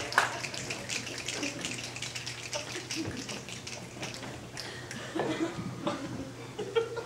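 Audience applause: dense clapping that thins out and dies away over the first four seconds or so.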